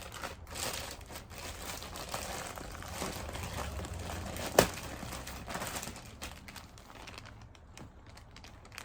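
Packaging wrapping being crumpled and rustled as parts are unwrapped, with one sharp click about four and a half seconds in; the rustling thins out near the end.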